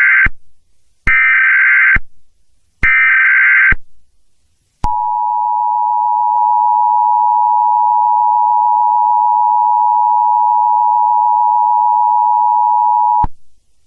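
Emergency Alert System tones: the last of three short bursts of screeching SAME header data, then two more, each about a second long, followed by the two-tone attention signal. The attention signal is a steady, loud dual tone held for about eight and a half seconds before it cuts off abruptly.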